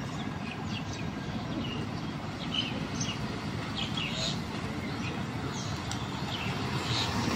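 Birds chirping in short, scattered calls over a steady low rumble of road traffic.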